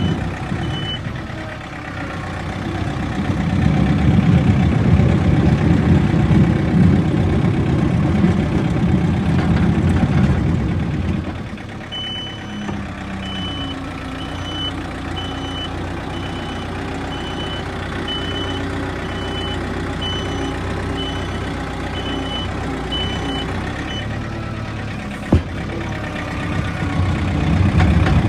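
Backhoe's diesel engine working hard under load, then, partway through, the reversing alarm beeps evenly at about one and a half beeps a second for some twelve seconds while the engine runs on. A single sharp knock comes near the end.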